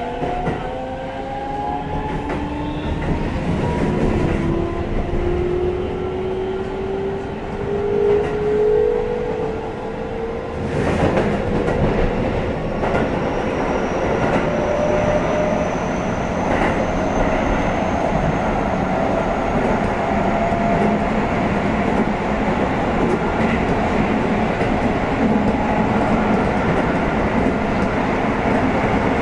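Keihan 3000 series train's Toyo IGBT-VVVF inverter and traction motors whining as it accelerates, several tones rising together in pitch and fading out about ten seconds in. After that comes the steady rumble of wheels on rail in the underground section, with some clickety-clack.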